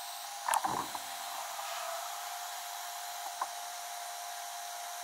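Heat gun running steadily, its fan blowing with a steady whine, as it heats a strip of HDPE plastic for welding. A brief knock comes about half a second in, and a small click about three and a half seconds in.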